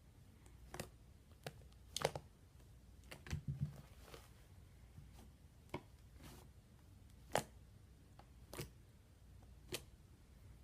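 Fluffy slime being squeezed and pressed by hand, giving sharp sticky clicks and pops about once a second, with a low thud about three and a half seconds in.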